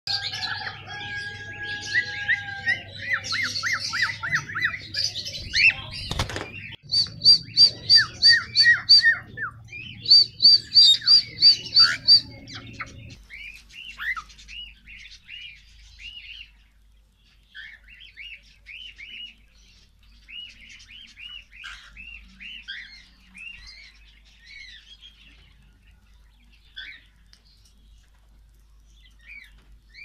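Cockatiels whistling and chirping. A loud stretch of whistles includes quick runs of evenly repeated notes and a single sharp knock about six seconds in. After about thirteen seconds the calls turn softer and become short, scattered chirps.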